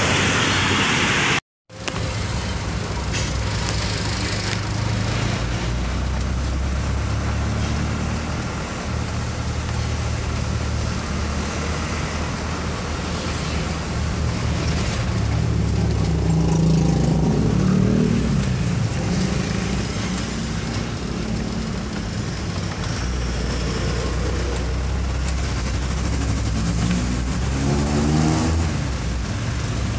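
Diesel closed-van truck's engine running, with road and traffic noise heard from inside the cab as it creeps along in slow traffic. The engine note rises around the middle and again near the end as the truck pulls away.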